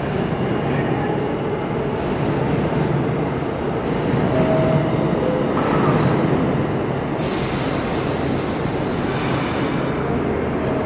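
R68 subway train rumbling along the platform and slowing to a stop, with a few short high squeals about halfway through.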